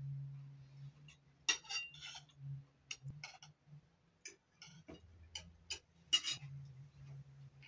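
Spoons and forks clicking and scraping on metal serving platters while eating: irregular light clinks, several a second at times, over a low steady hum.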